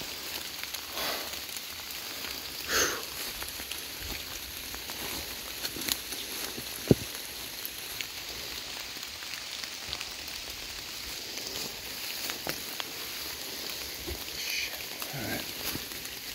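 Steady rain falling, with many small drop hits scattered through it and a sharp click about seven seconds in.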